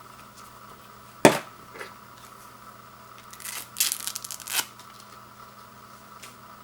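A sharp knock about a second in, then a little over a second of plastic packaging crackling and crinkling as it is handled.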